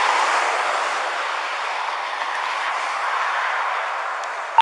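Steady rushing noise of road traffic going by, swelling near the start and slowly easing off.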